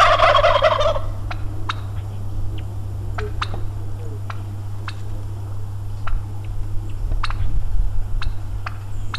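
Domestic turkey tom gobbling once, a rapid rattling call of about a second that ends soon after the start. Scattered sharp clicks follow over a steady low hum.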